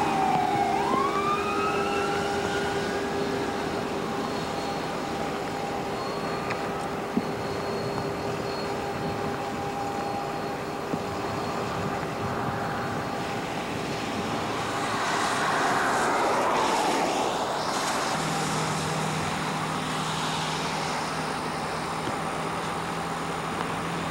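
Ambulance siren sweeping up and down in the first few seconds, over steady traffic noise on a wet highway. A swell of road noise rises and falls about fifteen seconds in, and a steady low engine hum runs near the end.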